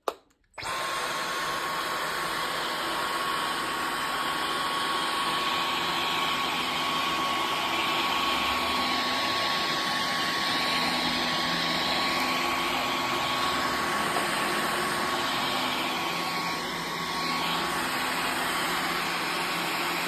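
Dyson V15 cordless stick vacuum with its laser floor head, switched on with a click and spinning up within half a second. It then runs steadily: a rush of air with a steady high whine over it.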